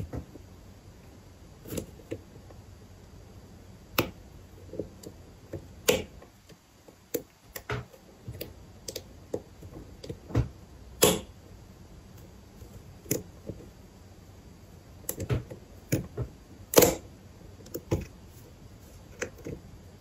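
Scattered, irregular clicks and ticks of a lock pick and tension tool working the pins of a Winkhaus five-pin brass euro cylinder fitted with spool driver pins, the loudest click about seventeen seconds in.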